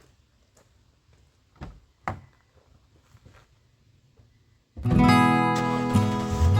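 A few faint knocks, then strummed acoustic guitar music that comes in suddenly about five seconds in.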